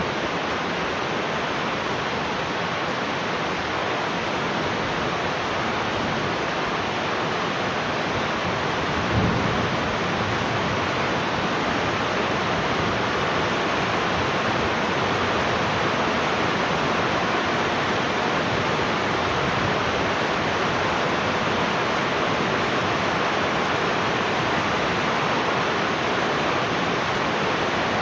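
Heavy rain falling steadily, with one brief low thump about nine seconds in.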